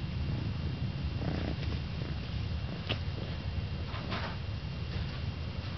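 Blue British Shorthair cat purring, a steady low rumble. A sharp click comes about three seconds in and a brief rustle a second later as the cats shift on the backpack.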